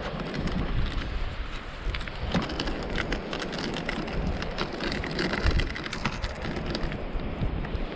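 Footsteps crunching through dry beach wrack and broken shell: a dense, uneven crackle of small clicks over a low, steady rumble.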